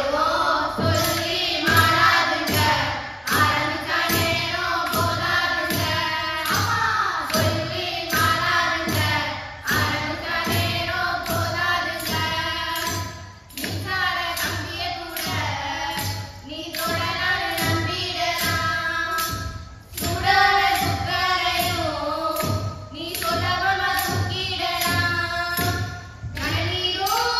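Villupattu (Tamil bow song): girls' voices singing in chorus to a steady beat from a clay pot and a small drum, with jingling percussion from tambourine and bells.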